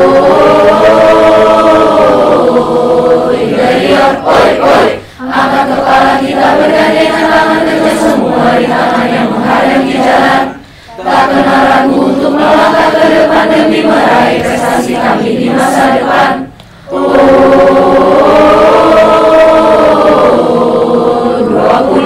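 A group of young men and women singing a cheer song together, in four phrases of about five seconds each with short breaks between them.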